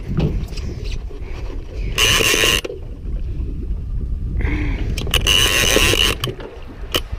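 A big-game conventional reel buzzing in two bursts, one short and one longer, as line runs off against the drag under a hooked bull shark. Under it runs a steady low rumble of wind and boat, with a few sharp knocks.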